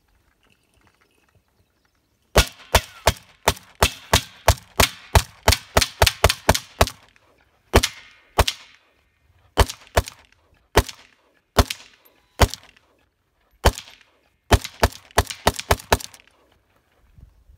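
AK-47 rifle in 7.62x39 fired rapidly, a fast string of about twenty shots at four or five a second. Then come slower single shots roughly a second apart, and another quick string of about seven shots near the end.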